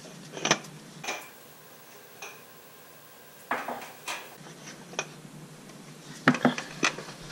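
Scattered sharp clicks and clinks of gloved hands working the oil filter cap loose at the back of a Mini Cooper engine, with a cluster of louder knocks near the end.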